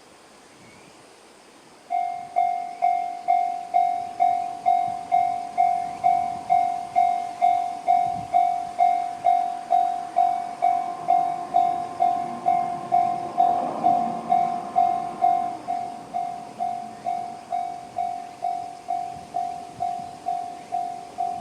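Japanese railway level-crossing alarm in the JR standard tone starts about two seconds in and dings steadily, about twice a second. Around the middle an engine-like hum swells and fades beneath it.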